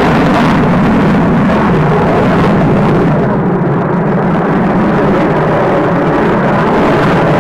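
Eurofighter Typhoon's twin Eurojet EJ200 turbofans: loud, steady jet noise from the display jet in flight. The sound turns duller about three seconds in as the high hiss fades.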